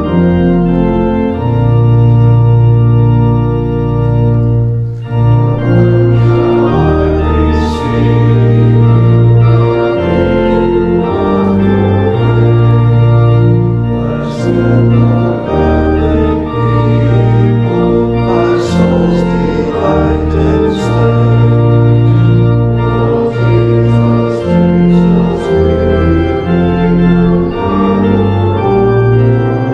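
Organ playing held chords over a bass line that moves note by note.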